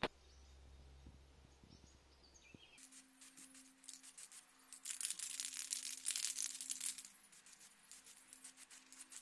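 Aerosol spray paint can hissing in a run of short bursts, loudest from about five to seven seconds in. Before it comes a sharp click and about three seconds of faint low hum.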